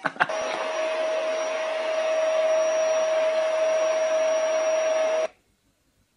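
A small electric appliance motor running with a steady hiss and a fixed whine, like a vacuum cleaner or hair dryer. It starts with a click and cuts off suddenly after about five seconds.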